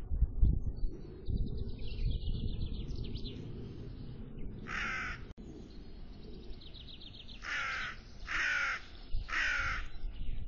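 A crow cawing four times, with one harsh caw about halfway through and three more in quick succession near the end. Under the caws there is a faint fast high twittering of small birds, and a low rumble in the first seconds.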